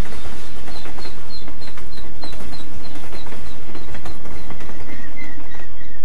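Train passing close by: a dense clattering rumble of wheels on rails, with a run of short high chirps about four a second that drops to a lower pitch a little past halfway.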